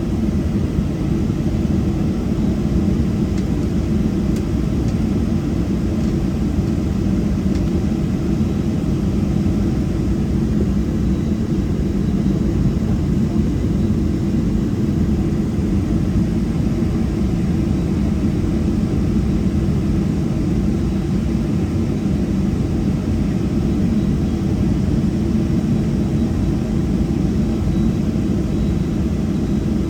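Steady low rumble inside the cabin of a taxiing Boeing 737-700: its CFM56-7B jet engines at taxi power, with airframe and rolling noise.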